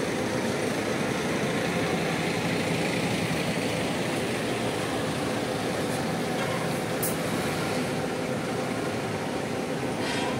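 Diesel coach buses running, a steady even hum and rumble.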